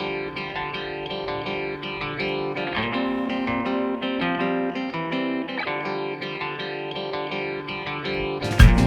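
Background music led by plucked guitar. Near the end a loud thump and a low rumble cut in over it.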